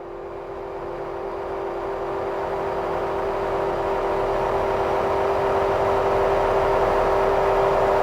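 Electronic synthesizer drone fading in: a steady held tone with fainter overtones over a grainy, hissing noise texture, growing louder throughout.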